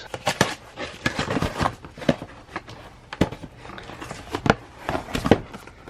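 A cardboard box being opened and rummaged through by hand: flaps and cardboard rustling and scraping, with irregular sharp knocks and clicks as the contents are moved.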